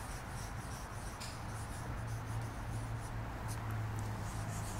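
Felt-tip marker stroking across paper on a flip chart as a line of words is written: a series of short, faint scratches, over a steady low hum.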